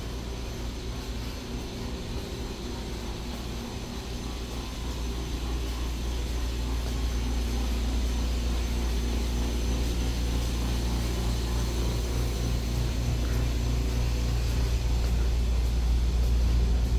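Low rumble of a subway train in the station, growing steadily louder from about five seconds in.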